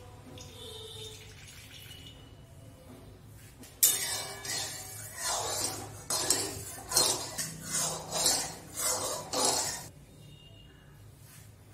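Brass spatula scraping around the inside of a metal kadai (wok), spreading mustard oil. It starts with a sharp clank about four seconds in, then runs in about ten quick scraping strokes, roughly two a second, and stops near ten seconds.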